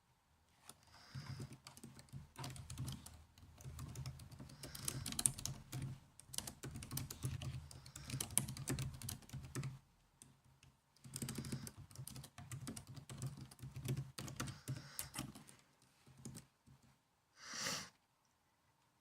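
Typing on a laptop keyboard: two runs of rapid key clicks with a pause of about a second between them. Near the end comes one short, separate sound.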